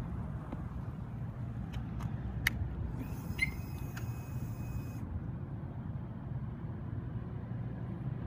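Harley-Davidson CVO Street Glide's 110 cubic inch V-twin running at a steady low idle, with a few light clicks and a short high electronic chirp about three seconds in.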